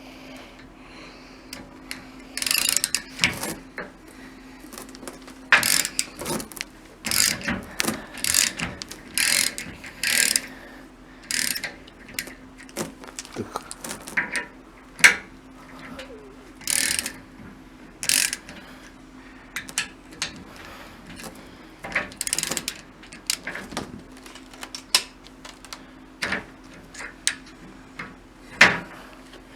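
Metal tool parts being handled, knocking and clinking irregularly, over a steady low hum.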